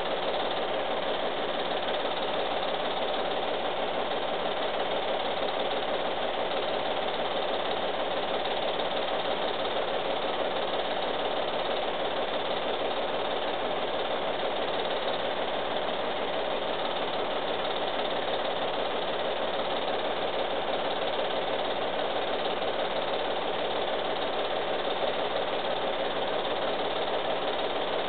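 Home-movie film projector running: a steady mechanical whirr and clatter of its motor and film transport, unchanging throughout.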